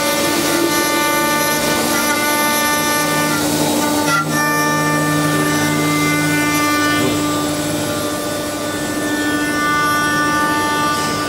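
Eight-head CNC wood-carving lathe running, its high-speed cutter spindles carving the turning wooden blanks: a steady, loud machine whine of several tones over a continuous rush of cutting noise, with a brief dip about four seconds in.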